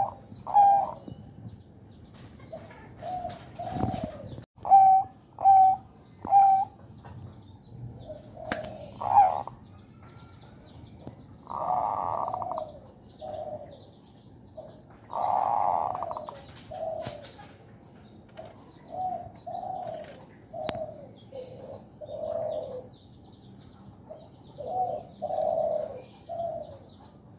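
Male zebra dove (perkutut) cooing in runs of short pitched notes, with two longer, rougher calls near the middle. This cooing is the sign of a male in breeding condition, here drawn out by the owner's fingers.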